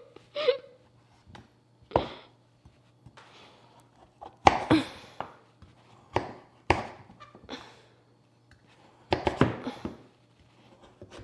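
Irregular knocks and clatters of kitchen utensils and cookware being handled, about a dozen separate hits spread unevenly, with a faint steady hum underneath.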